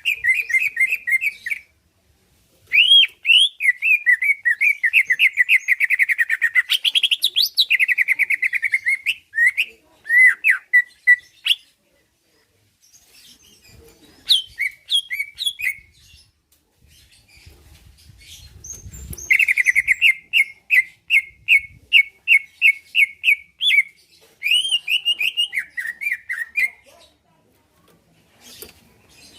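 Greater green leafbird (cucak ijo) singing: long phrases of fast, rapidly repeated chirping notes with short pauses between them.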